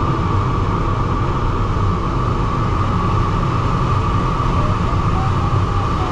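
Steady rush of air over the canopy inside the cockpit of a DG303 sailplane in gliding flight, with a steady high-pitched tone running through it.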